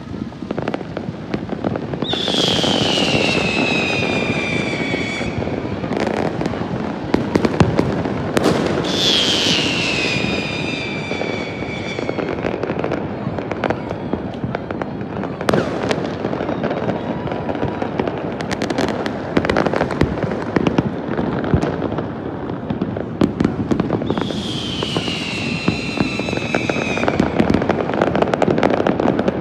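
Fireworks going off: a continuous crackle of many pops and bangs, with three long whistles that fall in pitch, about two, nine and twenty-four seconds in.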